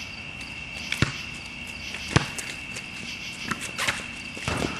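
Basketball bouncing on an outdoor court, with two sharp bounces about a second and two seconds in and a few lighter knocks after, over the steady high chirring of crickets.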